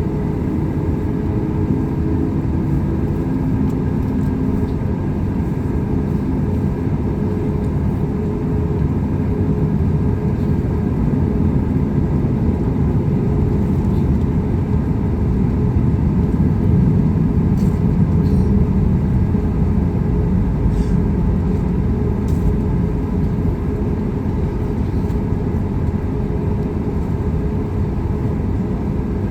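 Cabin noise of a Boeing 737 MAX 8 taxiing: a steady low rumble from its CFM LEAP-1B engines at taxi power and the rolling aircraft, swelling slightly about halfway through.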